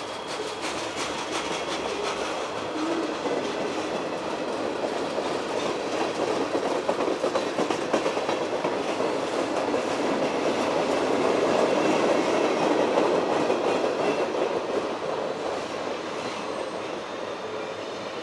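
Steel wheels of a CSX mixed freight train's cars rolling past on the rails, a steady rumble with fast clicking over the rail joints. The sound swells for a few seconds in the middle, then eases.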